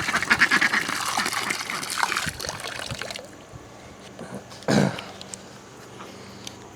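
Water running or pouring, which cuts off abruptly about three seconds in. A short thump follows near the five-second mark.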